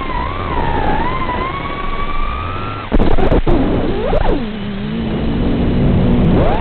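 FPV quadcopter's brushless motors whining, the pitch rising and falling with the throttle. About three seconds in the whine drops away suddenly, swoops up and down briefly, settles into a low hum, then climbs steeply again near the end.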